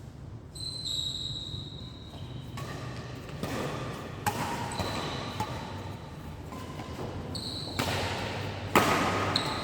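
Badminton play on an indoor court: sneakers squeaking on the floor several times, with a few sharp smacks of rackets hitting the shuttlecock, the loudest near the end.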